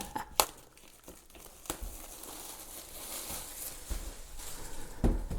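Cardboard and plastic packaging of a DVD box set being handled: rustling and sliding, with a few sharp clicks in the first two seconds and soft thumps near the end.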